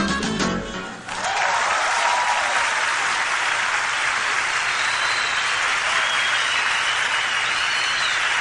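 The band's last chord ends about a second in, and a large concert audience breaks into steady applause with scattered cheers and whistles.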